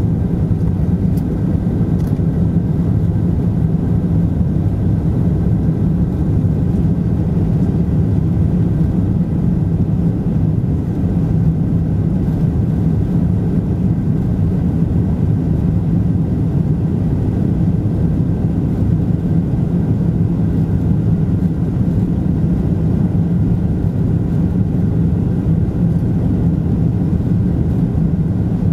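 Cabin noise of a Boeing 747-200 in its climb after takeoff, heard from a window seat over the wing: a steady low drone of the Rolls-Royce RB211 turbofans at climb power and the airflow past the fuselage.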